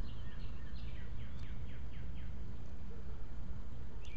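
A small songbird singing a quick run of about six falling notes about a second in, with a few other scattered chirps, over a low steady rumble.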